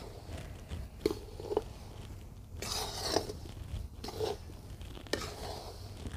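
A metal spatula stirs and scrapes a dry mix of roasted wheat flour and khoa around a steel karahi, making irregular gritty scrapes. A couple of sharp clinks sound where the spatula strikes the pan, about a second and a second and a half in.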